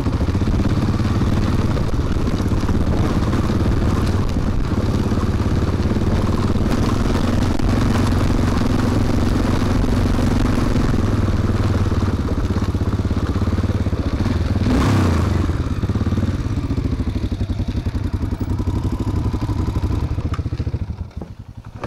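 Honda Dominator NX650's single-cylinder four-stroke engine running while the motorcycle is ridden off-road. The engine briefly revs about fifteen seconds in and eases off near the end.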